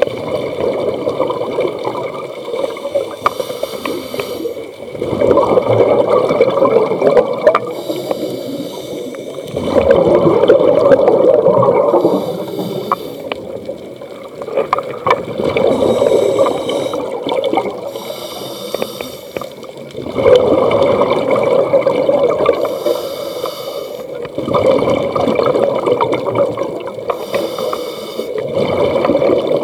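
Scuba diver breathing through a regulator underwater: a brief hiss on each inhale, then a loud gurgling rush of exhaust bubbles on each exhale, about one breath every five seconds.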